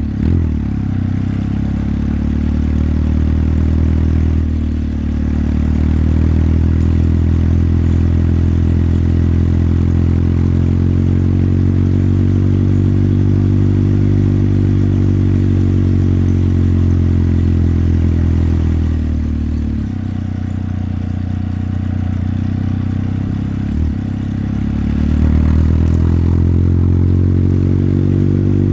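Motorcycle engine and exhaust under way, engine speed rising and falling as the rider works the throttle. It eases off about two-thirds of the way through, gives a short blip, and then picks up again near the end.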